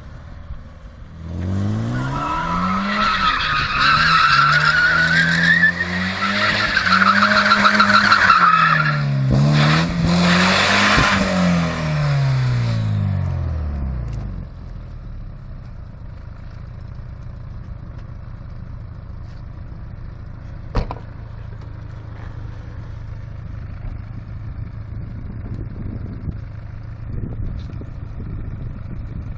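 BMW E36 316's four-cylinder engine revving up and down over and over while the rear tyres squeal through donuts, for about thirteen seconds. Then the engine settles into a steady idle, with a single sharp click partway through.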